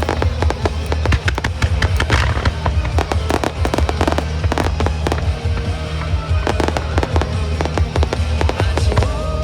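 A fireworks starmine barrage: many sharp bangs and crackles in quick succession, over music playing from loudspeakers.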